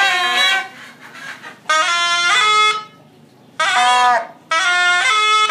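Two pi nae, Thai double-reed shawms with flared brass bells, being tried out in short shrill phrases with bent notes, broken by brief pauses. Near the end they play on without a break.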